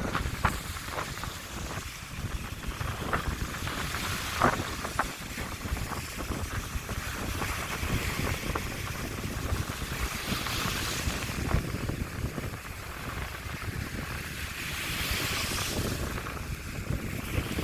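Strong wind buffeting the microphone with a constant low rumble, over sea waves breaking on the shore; surf washes in with a rising hiss twice, around the middle and again near the end. A few short sharp knocks sound in the first five seconds.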